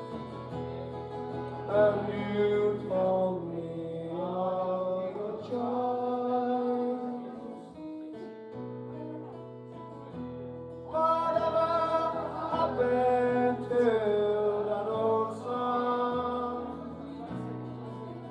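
A man singing a slow song live, accompanying himself on a strummed acoustic guitar, with a short break in the vocal about halfway through.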